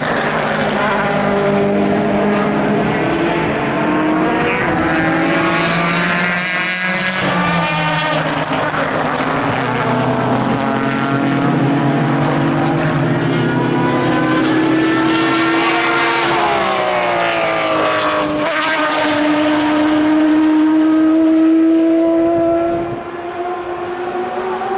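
Several endurance race cars passing one after another at racing speed. Their engine notes overlap, rising and falling in pitch as they brake and accelerate, with abrupt breaks in the tone.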